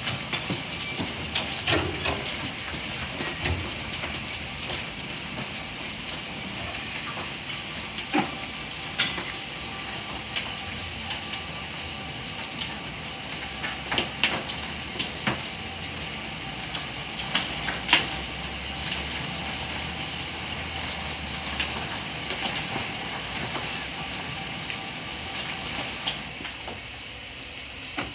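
Ol49 steam locomotive standing in steam, hissing steadily, with scattered sharp metallic clanks and knocks.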